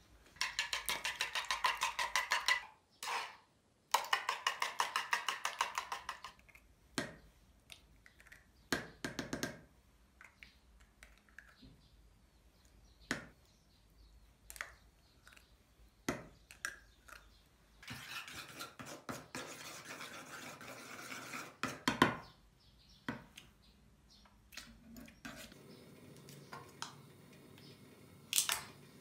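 Metal chopsticks beating eggs and milk in a wooden bowl: two runs of fast, even clicks near the start. Later a spoon stirs and scrapes a thick sauce in a small wooden bowl in a longer run of rapid clicks, with scattered single taps of utensils in between.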